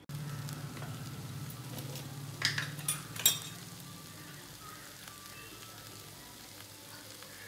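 Okra masala curry sizzling in a stainless steel kadai on a gas stove, with a low hum during the first four seconds. A few sharp metallic clinks come about two and a half to three and a half seconds in, as the steel lid is lifted off the pan.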